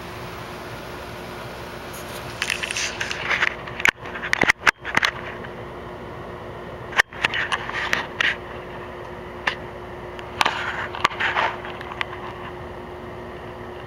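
A steady fan-like hum, broken three times by clusters of scraping, crackling noise.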